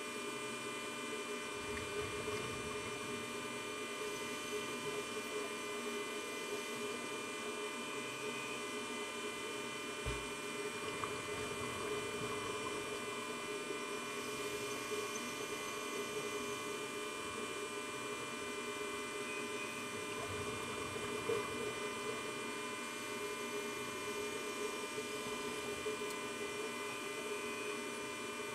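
Steady electrical hum made of many layered steady tones, unchanging throughout, with a brief low thump about a third of the way in.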